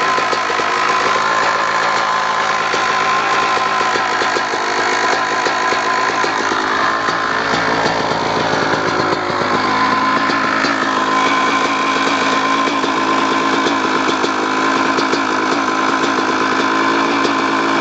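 2002 Kawasaki KX250's single-cylinder two-stroke engine running steadily at idle, with a ticking from inside the engine. The cause is unknown to the owner: others have suggested the clutch basket, the power valve, or a worn connecting rod or crank bearing.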